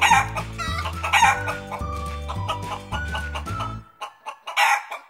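Chicken clucking sounds over upbeat children's music with a steady beat. The music cuts off about four seconds in, followed by a short noisy burst.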